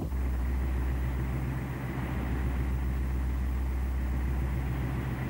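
Heavy machinery engine running steadily: a low drone with an even hiss above it.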